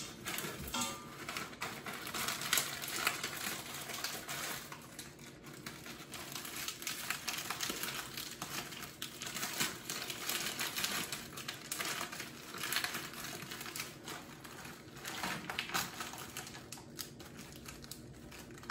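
Plastic food bags rustling and crinkling as they are handled and emptied, with irregular light clicks and taps.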